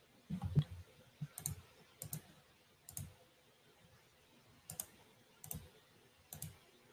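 Computer mouse clicks, about six sharp, irregularly spaced clicks. A low, dull thump about half a second in is the loudest sound.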